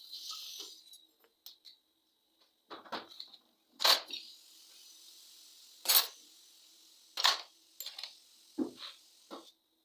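Irregular sharp metallic clicks and clinks of tools and fittings being handled, with a brief hiss during the first second.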